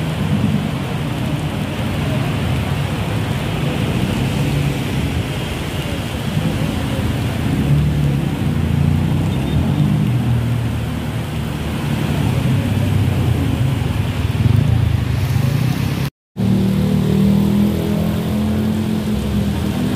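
Heavy rain falling on a wet city road, mixed with the running engines of cars and motorbikes idling and moving in traffic. The sound breaks off for a split second about three-quarters of the way through, then carries on.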